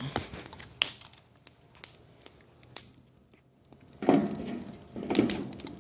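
Wood fire with a burning HVAC filter in it, crackling with scattered sharp pops and a louder rustling flare of crackle about four seconds in.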